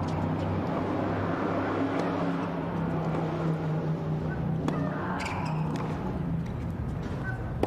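Tennis rally: a ball struck back and forth by racquets, sharp hits every two to three seconds, over a steady low hum.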